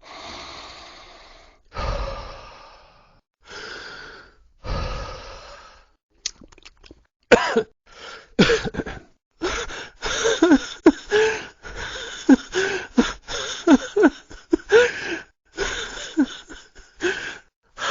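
Non-speech vocal effects of the Loquendo TTS Kerem voice: four breathy sighs and exhalations over the first six seconds, then a rapid run of short coughs and throat bursts.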